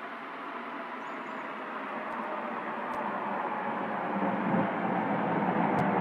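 Steady roar of the Birch glacier's collapse, an ice and rock avalanche, growing louder throughout.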